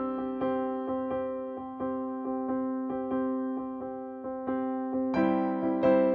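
Background music: a gentle keyboard tune with notes struck at an even pace over held tones. It grows fuller about five seconds in.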